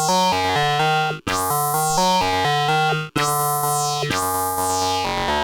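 Blipblox synthesizer playing a looping sequence of short notes over a bass line, the phrase restarting about every two seconds with a bright sweep that rises and falls over each pass. The pattern changes near the end.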